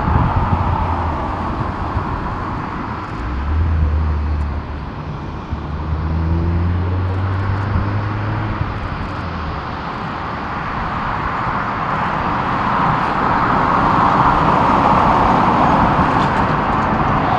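Jet engines of a taxiing Boeing 747-400 running at low taxi power: a steady jet roar that grows louder over the last few seconds. A low hum sits under it from about three to ten seconds in.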